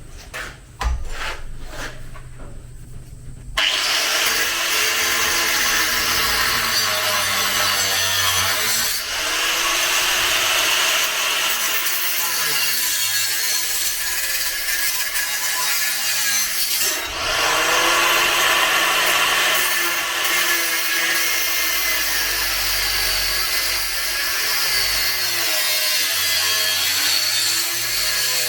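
Power tool cutting through a steel frame member to shorten it, starting about three and a half seconds in after a few light knocks and running on with a wavering pitch as it bites under load.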